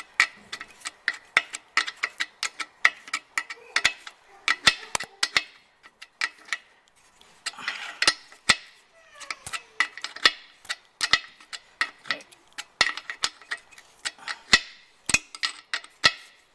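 A 13 mm spanner tightening the brake pipe union nut into a wheel cylinder: repeated sharp metallic clicks and clinks, a few a second with short pauses, and a brief scrape about eight seconds in.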